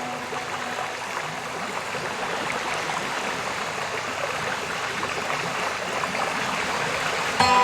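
Waterfall water rushing with a steady, even noise. Music cuts back in sharply just before the end.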